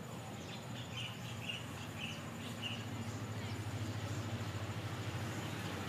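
Low, steady rumble of a GE diesel-electric locomotive still out of sight, slowly growing louder as the train approaches. Small birds chirp over it in the first half.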